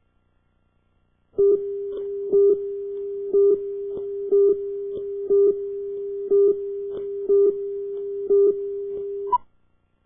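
A steady electronic tone with a louder beep laid over it about once a second, running for about eight seconds and then cutting off suddenly.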